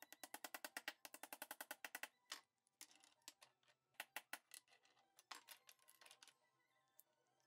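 Light, sharp taps of a small mallet driving wooden wheels onto dowel axles: a fast run of about ten taps a second for two seconds, then slower, irregular taps.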